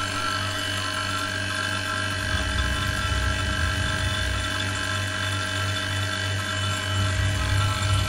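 Small refrigeration vacuum pump running steadily, a constant hum with a whine over it, pulling a vacuum on the refrigerator's sealed system before it is charged with R600a.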